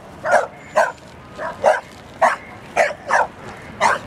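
A pit bull barking over and over: short barks about two a second, about eight in all.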